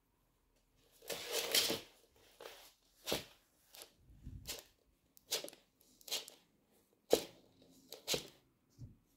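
Argentine tegu catching and chewing a live mouse. A brief scuffle comes about a second in, followed by sharp crunching snaps of its jaws, roughly one a second.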